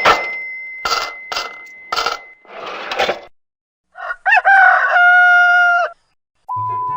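Several short noisy bursts, then a rooster crowing once, its call rising and then held steady, about four seconds in. Near the end comes a short steady beep.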